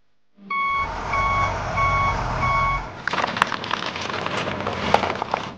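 Truck reversing alarm beeping four times over a low engine rumble, followed by a rattling clatter with sharp clicks.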